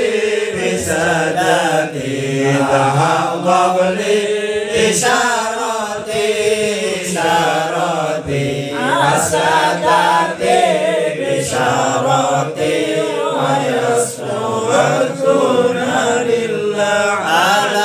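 Group of men chanting an Arabic sholawat together in unison, in long, wavering melodic lines.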